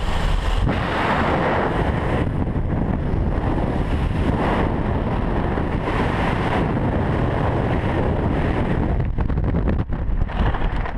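Freefall wind blasting over the skydiver's camera microphone, loud and steady. About nine seconds in, the rush breaks up into a choppy flutter and drops as the parachute canopy deploys and inflates.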